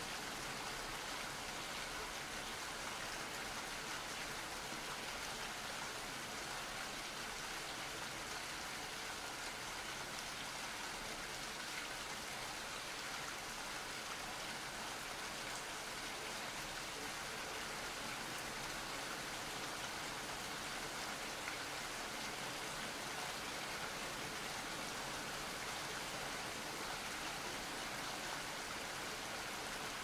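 Rain falling steadily, an even hiss that neither builds nor fades.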